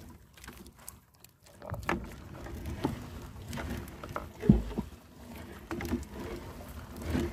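Gill net being hauled and handled in a small boat: scattered knocks and rustles against the hull over a low rumble of water and boat, with one heavy thump a little past halfway. The first second or so is quieter.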